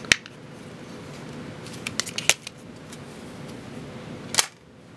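Sharp plastic clicks and taps from a disassembled Samsung Galaxy S2's parts being pulled apart and handled: one near the start, a quick cluster of three or four about two seconds in, and a louder click near the end.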